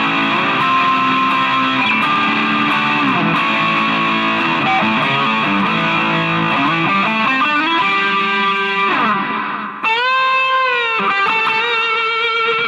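Ibanez Jem7V electric guitar on its bridge pickup (position 1) played through distortion: overdriven riffs and chords. About ten seconds in a held note swoops up in pitch, holds, and falls back.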